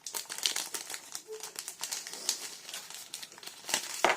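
Plastic wrapper of a two-pack of Reese's peanut butter cups crinkling and tearing as it is opened by hand, a rapid irregular crackle with a louder burst near the end.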